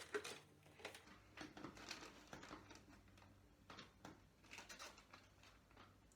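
Faint handling noises in a quiet small room: scattered light rustles and small taps, as of torn-up chicken nuggets and their packaging being moved about and mixed.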